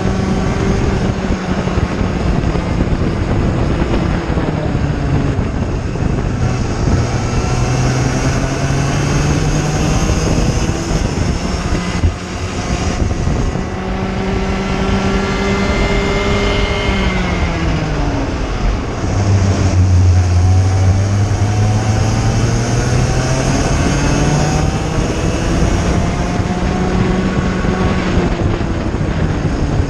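Onboard sound of a cadet kart's IAME 60cc two-stroke engine at racing speed, its pitch climbing along the straights and falling off for the corners, with a deep drop to low revs a little past halfway before it winds up again. Wind and road noise rush over the microphone throughout.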